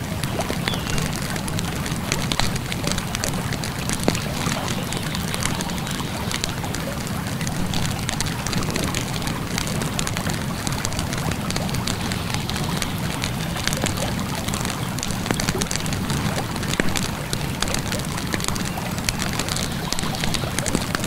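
Campfire crackling with many small irregular pops over the steady sound of flowing river water.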